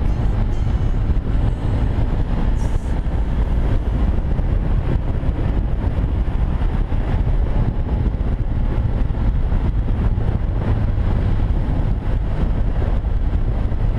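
Large adventure motorcycle riding along a road, heard from the rider's helmet: a steady, loud low rumble of engine and rushing air on the microphone.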